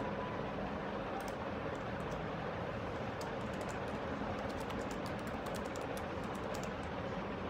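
Typing: a run of quick, light clicks, thickest in the second half, over a steady background hiss.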